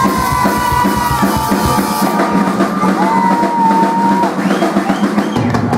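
Live band music with a drum kit and a held, bending melody line on top; the bass drops out about two seconds in and comes back near the end.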